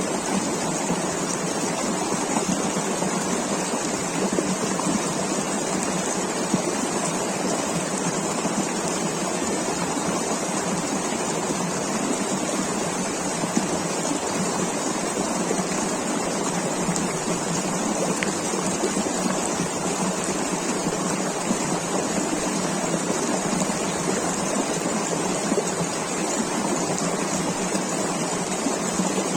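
River water rushing steadily over stones, an even unbroken flow.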